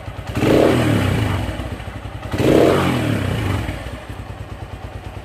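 Keeway Cafe Racer 152's single-cylinder engine idling with a steady beat and revved twice by the throttle, each rev rising and falling back to idle.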